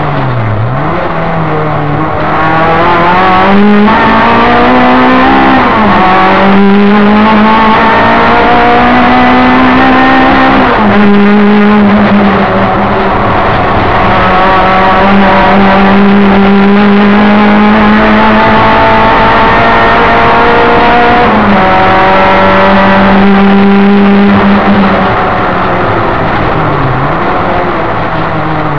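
Opel Ascona race car's four-cylinder engine, heard from inside the cabin, revving hard through the gears. Its pitch climbs, drops sharply at each shift or lift several times, then climbs again, with long stretches held at high revs.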